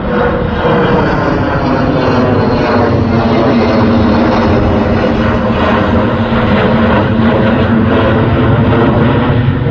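Twin-engine jet passing overhead: loud, steady jet engine noise with a faint humming tone running through it.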